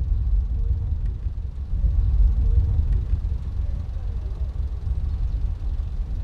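Low, uneven outdoor rumble with faint voices in the background.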